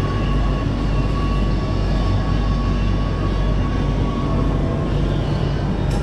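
Steady low mechanical hum with a thin, faint whine held over it until about five seconds in.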